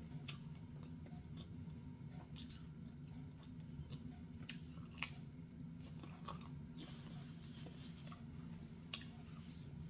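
A person chewing and biting into pizza crust, with scattered short wet mouth clicks over a steady low room hum.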